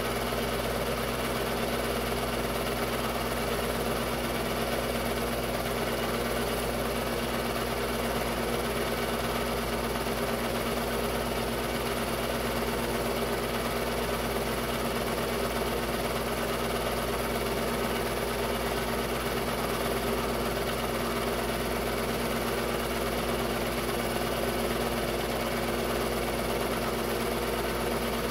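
Technicolor 810 8mm film-loop cartridge projector running, a steady mechanical drone that does not change.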